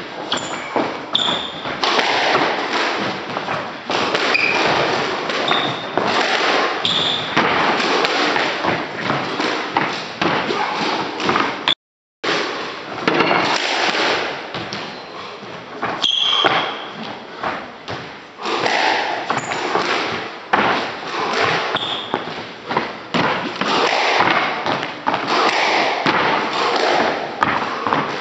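Quick thudding footsteps and lunges of a squash player on a wooden court floor, with short squeaks of court shoes. The sound cuts out for a moment about twelve seconds in.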